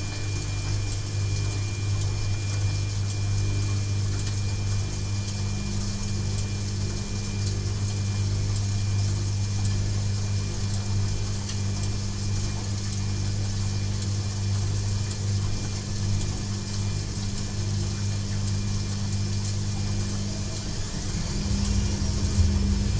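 Washing machine running with a steady low motor hum and an even hiss, plus a faint steady high whine.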